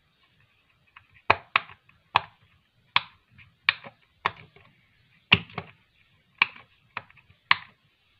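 Silicone pop-it bubbles being pressed by finger, a series of about eleven sharp pops at an uneven pace, roughly one every half second.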